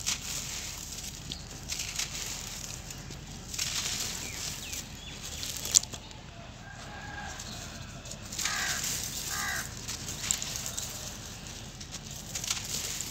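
Dry sand-cement lumps crunching and crumbling between fingers, the loose grit trickling down in gritty bursts, with a sharp tick about six seconds in. A few short pitched calls sound in the background in the middle.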